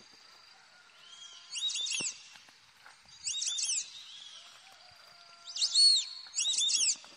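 A songbird singing: four short phrases of high, quickly rising-and-falling chirps, the last two louder.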